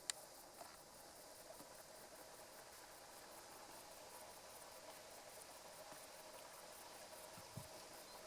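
Faint outdoor ambience with insects chirring steadily, and one sharp click just after the start.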